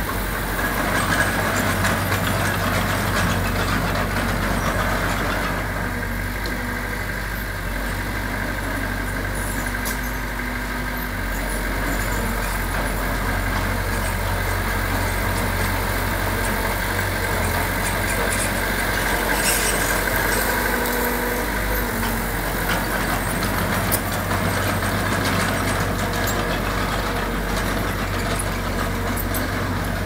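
Diesel engine of heavy earthmoving machinery running steadily.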